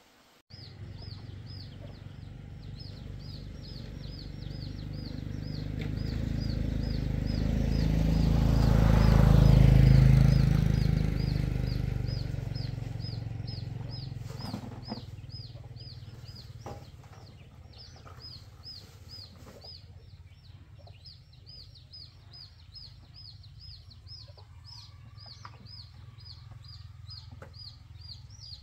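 Motorbike engine running as it approaches, passes closest about nine seconds in, and fades away. Rapid high chirping, about three chirps a second, goes on throughout.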